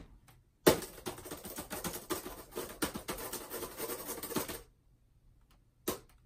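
Rapid, frantic typing on an HP laptop keyboard: a dense run of key clicks lasting about four seconds, then a single click near the end.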